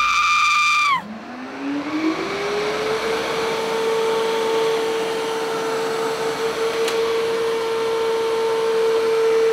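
A held musical note ends about a second in, then a robot vacuum cleaner's motor spins up, its whine rising in pitch over about two seconds, and keeps running steadily with a hiss. A short click sounds about seven seconds in.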